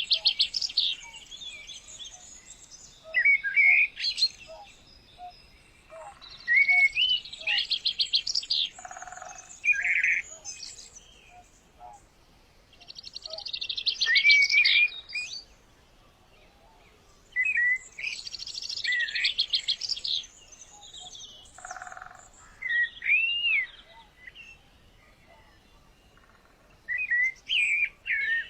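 A bird singing the same kind of phrase over and over, about every four to five seconds. Each phrase has a few short curved whistles and a fast rattling trill, with quiet gaps between phrases.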